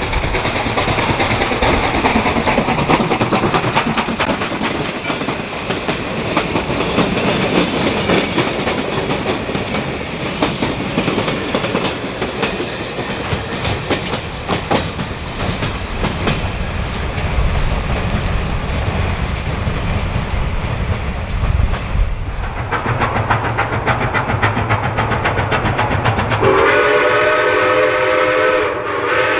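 Steam train running past, its wheels clattering over the rail joints. Near the end the locomotive's whistle starts blowing a steady chord of several notes.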